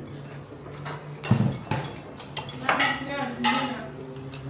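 A utensil clinking and scraping against a mixing bowl as cake batter is stirred, with a string of sharp knocks, the loudest about a second in. A brief vocal sound is heard around the middle.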